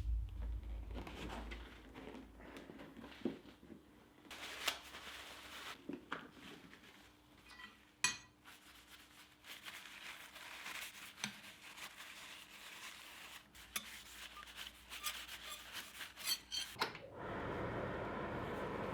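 Scattered light metal clinks, taps and scrapes, like steel tools and a small workpiece being handled and rubbed at a bench. A steady rushing noise starts near the end.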